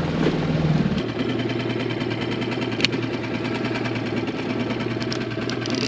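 Fishing reel whirring steadily as the tai-rubber jig sinks and line pays out; the pitch settles a little lower about a second in.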